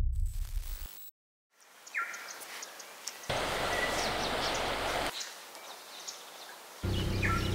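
A low rumble dies away, then after a moment of silence comes outdoor ambience with short bird chirps. A rush of river water runs for about two seconds in the middle, and near the end a steady low vehicle hum with road noise comes in.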